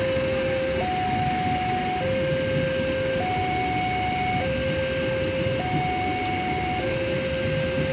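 Railway level-crossing alarm sounding two alternating electronic tones, switching between low and high about every second, over the steady rumble of a Commuter Line Bandung Raya train's coaches rolling past on the rails.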